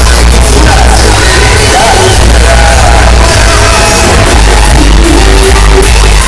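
Music blasting from a large DJ sound system, with heavy bass and a singing voice over it, played at full level throughout.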